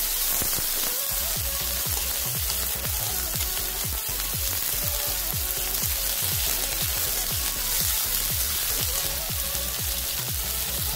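Sliced onions sizzling steadily in hot mustard oil in an aluminium wok while being stirred with a metal spatula, frying down into crisp fried onions, over background music.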